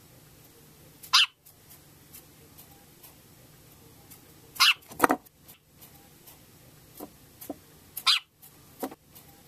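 A dog barking in short, separate barks, each falling in pitch: one about a second in, a loud pair near the middle, and a few more near the end.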